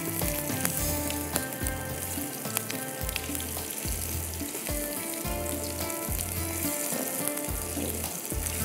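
Potato-and-sesame kababs sizzling steadily as they fry in hot oil, with background music and a regular low beat underneath.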